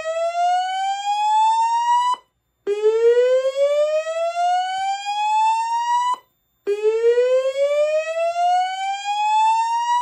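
Slow-whoop evacuation tone from a Notifier DVC voice evacuation system, sounded through a red wall-mounted speaker strobe. Each whoop is a rising sweep lasting about three and a half seconds, cut off abruptly, with a short silent gap before the next. The tail of one sweep ends about two seconds in, then two full sweeps follow. It is the fire alarm's evacuation signal, played between repeats of the recorded voice message.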